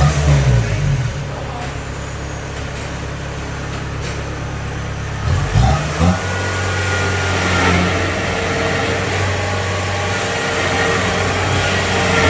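Kubota DC70 combine harvester's diesel engine running, its pitch shifting with throttle changes just after the start and again about five and a half seconds in, then holding steady.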